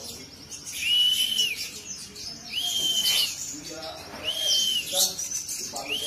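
Caged crimson sunbird calling: a clear arched whistle repeated four times at an even pace, with high thin chirps in between.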